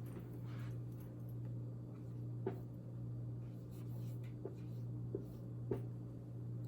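Faint writing sounds: a short scratchy stroke, then a few light ticks spaced out, over a steady low hum.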